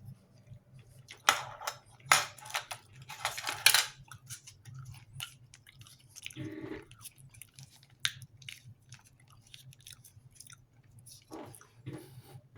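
A person eating close to the microphone: chewing and mouth sounds, with a few louder noisy bursts in the first four seconds.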